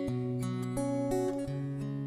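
Background music: strummed acoustic guitar chords, changing about every half second.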